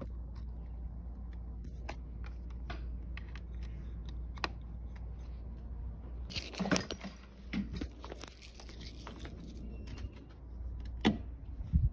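Handling noises: scattered light clicks and knocks and a rustle about six seconds in, over a steady low hum, with two louder knocks near the end.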